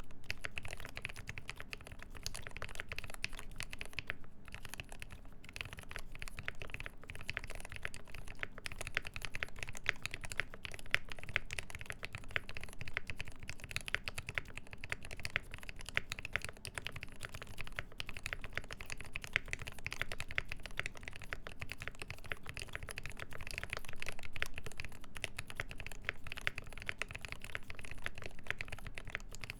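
Continuous fast typing on a Mode 80 mechanical keyboard with a full brass plate, lubed ZealPC Tealio linear switches with milky Gateron top housings and GMK keycaps: a dense, even stream of keystroke clacks.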